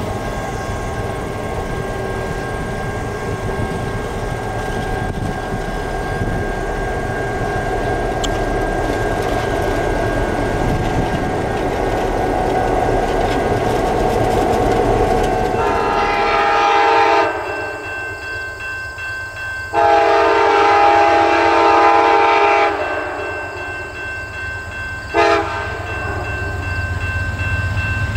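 Canadian National diesel locomotives running past with a steady rumble of engines and freight cars. From about sixteen seconds in, a diesel train horn sounds the level-crossing signal: two long blasts and then a short one.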